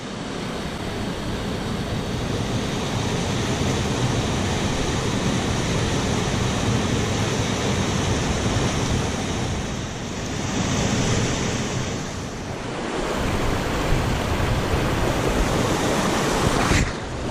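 Waterfall and fast mountain creek water rushing: a steady, loud hiss of white water.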